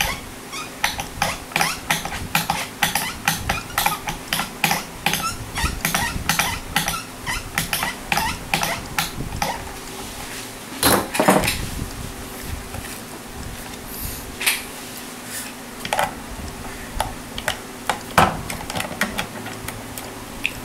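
Light metallic clicks and clinks, quick for the first half and sparser later, with one longer rattle about eleven seconds in: hands and a hex key working the strings and locking hardware of a guitar's Floyd Rose floating bridge.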